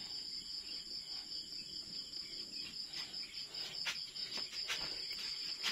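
Crickets chirping in one steady high-pitched trill, with a few faint knocks.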